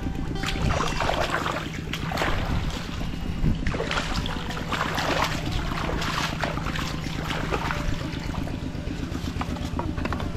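A motor running steadily with a constant low hum, under an irregular noisy rustle.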